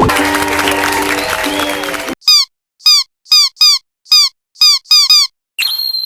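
Cartoon sound effects: a shimmering, hissy musical flourish for about two seconds, then about eight short, quick falling chirps, and near the end a single bright ding that rings on.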